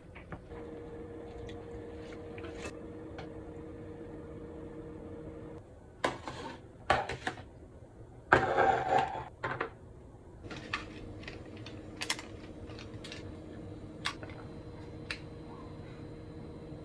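Kitchen handling sounds: chopsticks and a fork clicking against a plastic colander, a frying pan and lunch-box containers as pasta is moved and packed. There is a louder clatter and rustle twice near the middle, over a steady hum that drops out for a few seconds in the middle.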